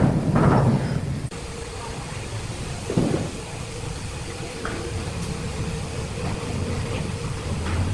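An engine runs steadily with a low rumble, and heavy knocks come at the start and again about three seconds in.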